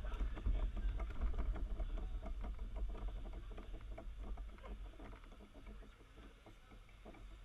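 Shifter kart rolling slowly over asphalt with its engine off: a low rumble with many small irregular clicks and rattles, fading away toward the end.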